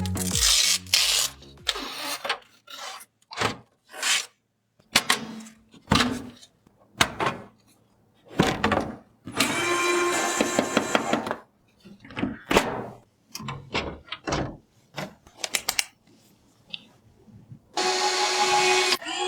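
Hands assembling PC parts: a string of short clicks, taps and scrapes with brief pauses between them, a steady stretch of rubbing noise about halfway through, and a steadier, longer mechanical sound near the end.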